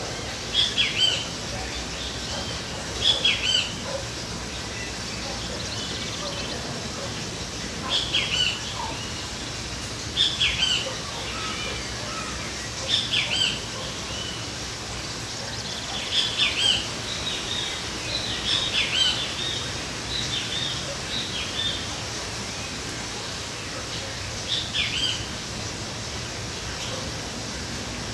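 Birds chirping in short bursts of quick, high, downward-sliding notes that come every two or three seconds, over a steady background hum.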